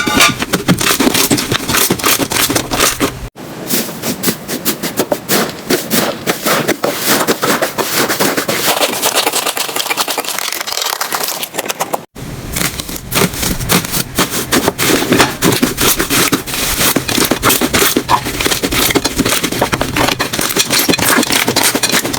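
Slime being pressed and squished by hand, giving dense, rapid crackling and popping. The sound breaks off sharply twice, about 3 and 12 seconds in, and starts again straight after.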